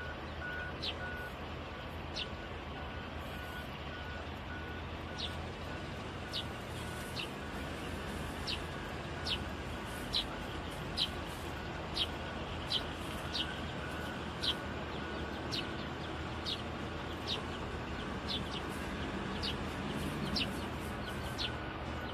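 Steady engine noise of distant heavy earthmoving machinery and trucks, with a faint reversing alarm beeping for the first few seconds. A bird chirps over it, short high chirps roughly once a second.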